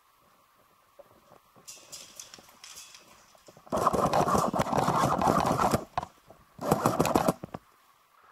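Airsoft rifle firing two rapid full-auto bursts, a long one of about two seconds and then a short one a second later, with fainter rapid clicking before them.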